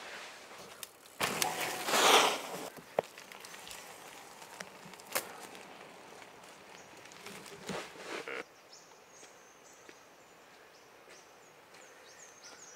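A mountain bike passing close by on a dirt forest trail, its tyres rolling over dirt and leaf litter, loudest about two seconds in, with a few sharp clicks and a smaller swell of tyre noise as it rides away. The second half is quieter, with faint high-pitched chirps.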